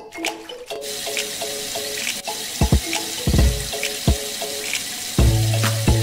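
Water running from a thin hose and splashing steadily into standing water, starting about a second in.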